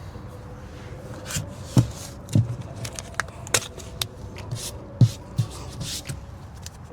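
Adhesive tape being handled by hand: short rasps of tape pulled from the roll and pressed on to hold a car door window up, with scattered clicks and knocks, two of them sharper than the rest.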